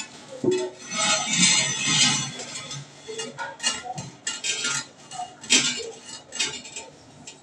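Ceramic toilet being pressed and shifted into place: a stretch of scraping about a second in, then a run of sharp clinks and knocks of porcelain.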